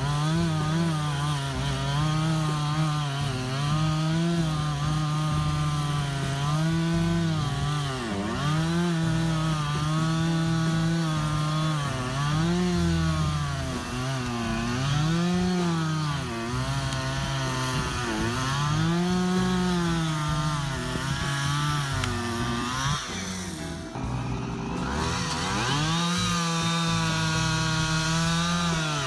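Chainsaw engine running at high revs while cutting into a tree stump. Its pitch sags and recovers every couple of seconds as the chain bites into the wood. About three-quarters through, the engine note drops briefly, then comes back up.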